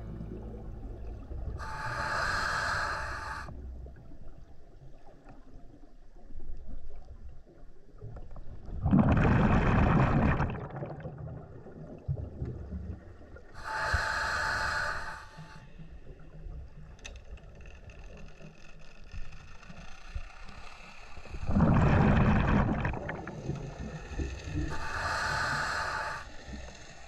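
Scuba diver breathing through a regulator underwater, slowly: three inhalations, each a hiss with a whistling tone, alternating with two louder rushes of exhaled bubbles, about one breath every twelve seconds.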